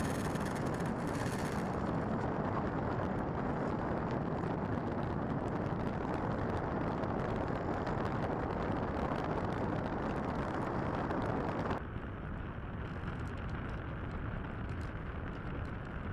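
Steady rushing wind and airframe noise picked up by the onboard camera of a Bixler 3 RC plane in flight. A faint high whine fades out in the first two seconds, and about twelve seconds in the rush drops suddenly to a quieter, duller noise.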